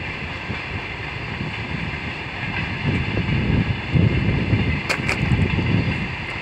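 Distant freight train of tank cars rolling past as a steady rumble and hiss. Wind buffets the microphone in gusts through the middle, the loudest part, and there are two brief clicks about five seconds in.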